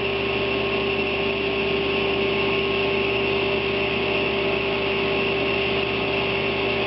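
Table saw running steadily, a constant hum with no change in pitch or load.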